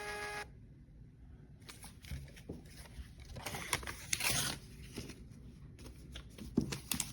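Scattered clicks and short rustles of objects being handled, with a louder rustle about four seconds in.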